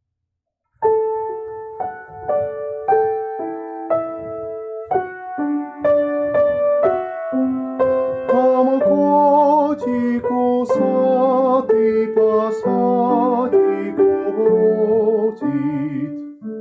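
Piano playing the introduction to a children's art song: a melody over chords that begins about a second in and grows busier in the second half.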